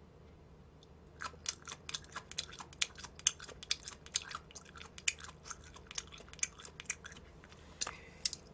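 Close-miked chewing of mustard-leaf kimchi (gat kimchi): many quick, sharp wet clicks of chewing starting about a second in, with a short pause and a few more chews near the end.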